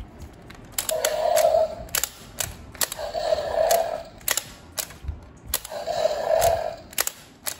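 Plastic toy T-Rex worked by its button: the jaw mechanism clicks and clacks as the mouth opens and shuts, with four short buzzy bursts of sound, one about every one and a half to two seconds.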